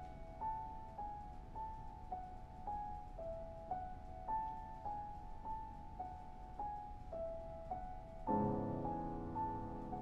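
Steinway grand piano played solo: a repeating figure of single high notes, about two a second, then a fuller, louder chord with low bass notes comes in about eight seconds in and rings under the continuing high notes.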